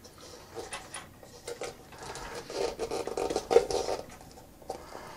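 Hands fitting a toggle switch into an electric guitar's top: a run of small clicks, taps and scratches, busiest in the middle.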